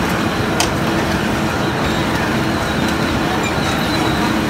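Steady rumble and rush of a spinning carnival ride heard from a seat on board, with wind buffeting the microphone and a faint steady hum underneath.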